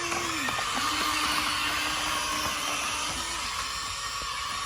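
Huina excavator working: a steady high mechanical whine of its motors.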